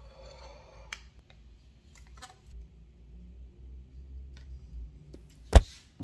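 Quiet handling noises: faint rustling and a few light clicks, then one sharp click or knock near the end, over a low steady hum.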